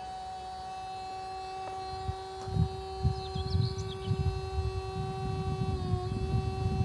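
Hyster R1.4 reach truck's electric hydraulic pump motor whining steadily as the mast lifts the forks, the pitch dipping slightly near the end. A gusty low rumble joins from about a third of the way in.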